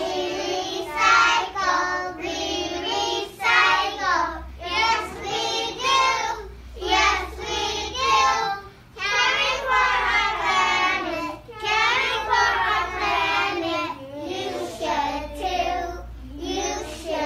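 A group of kindergarten children singing a song about recycling together, in phrases with short breaks.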